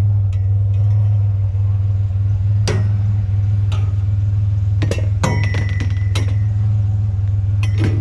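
Truck engine idling with a steady low hum, over which pieces of scrap metal clink and knock about six times as they are handled; one knock about five seconds in rings on briefly.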